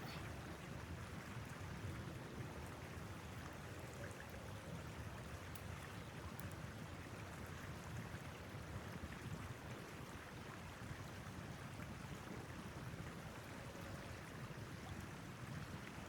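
Steady low rushing of wind, with a few faint ticks.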